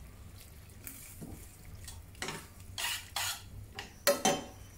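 Metal tongs tossing sliced mushrooms and garlic in a stainless steel skillet: a few soft scrapes and clatters, then two sharp clinks of the tongs against the pan about four seconds in.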